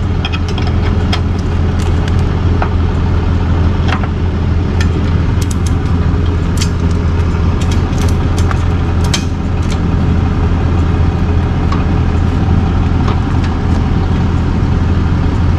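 Tow truck engine idling with a steady low drone, with scattered short clicks and ticks over it.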